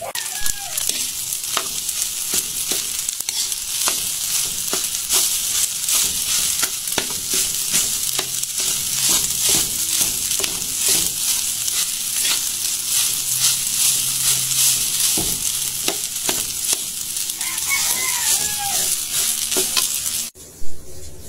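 Garlic fried rice frying in margarine in a wok, sizzling steadily while a metal spoon stirs and scrapes it against the pan in short clicks. The sizzle cuts off suddenly near the end.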